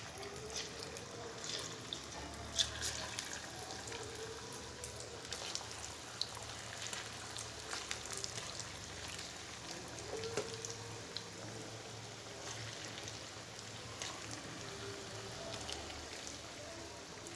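Marinated boneless chicken pieces deep-frying in hot oil in a kadai: a steady sizzle with many scattered sharp crackles and pops.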